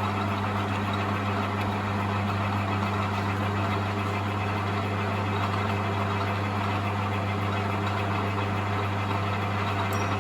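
Metal lathe running with a steady hum while taking a light first cut, about a quarter millimetre deep, on the outer edge of a spinning cast iron disc.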